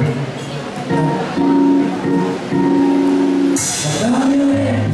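Live band playing a song's instrumental intro: held guitar chords and notes over a steady beat. About three and a half seconds in comes a short burst of hiss, and a short gliding voice just after it.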